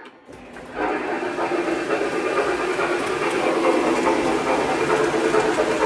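Two O gauge model steam locomotives pulling passenger cars, a Lionel Legacy New York Central Dreyfuss Hudson and a Pennsylvania Railroad T1, running on three-rail track under conventional transformer power at about 16 volts. The steady running of wheels and motors comes in loud about a second in.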